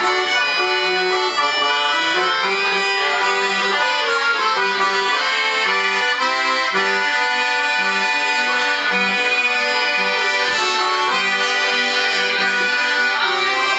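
Accordion playing a dance tune, its melody held over a regular, alternating bass note pattern.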